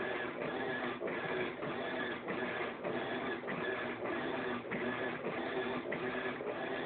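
Electrolux LTS12 top-loading washing machine agitating a load on its rug program: a steady mechanical churning with a regular beat about twice a second.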